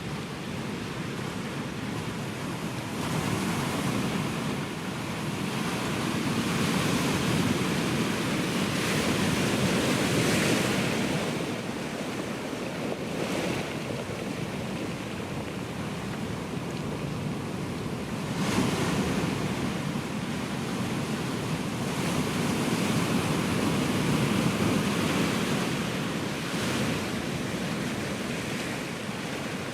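Ocean surf washing onto the shore, a steady rush of water that swells into two long wave surges, one about three seconds in and one about eighteen seconds in, each fading slowly as the wave draws back.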